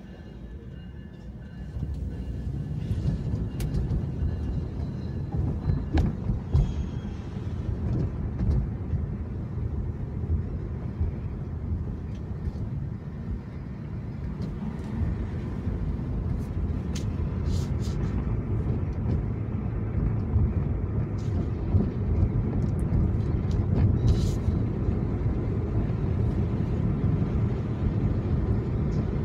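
Car cabin noise while driving slowly in city traffic: a steady low road and engine rumble, with a few faint ticks.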